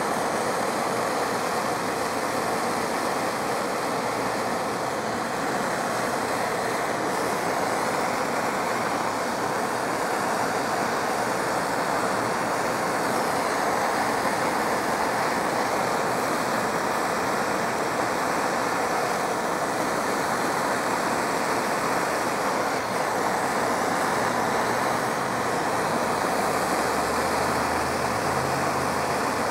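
Propane hand torch burning with a steady hiss while it heats an aluminum boat hull to melt an aluminum brazing rod into a pinhole leak.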